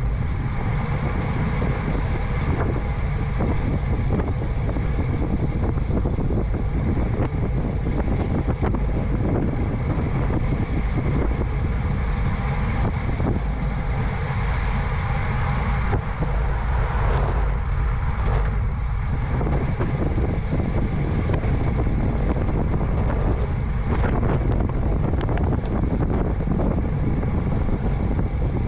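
Steady wind noise rushing over the microphone of a camera on a road bike moving at about 21 mph.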